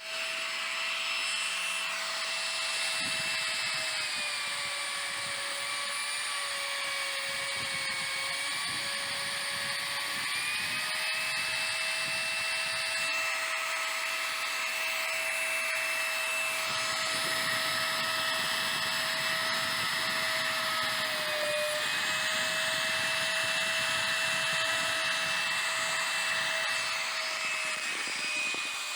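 CNC router spindle whining steadily as it cuts MDF, with a hiss of cutting under the whine. Its pitch sags slightly a few times and then recovers.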